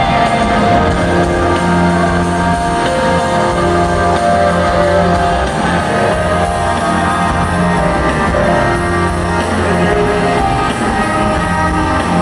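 Live rock band playing, with guitar to the fore, in a large concert hall.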